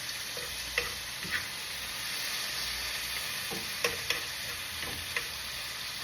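Bacon frying in a pan: a steady sizzle with a scattering of short, sharp pops and clicks.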